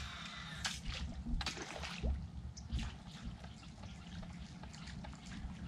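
Faint water sounds: scattered drips and small splashes with light clicks, over a low rumble.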